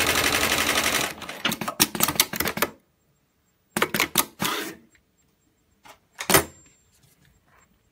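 JUKI PLK-G2008H programmable pattern sewing machine stitching heavy sling webbing with rapid, even needle strokes, which stop about a second in. Irregular sharp mechanical clacks follow in short clusters, the loudest a single clunk near the end, as the machine's mechanisms move after the stitching stops.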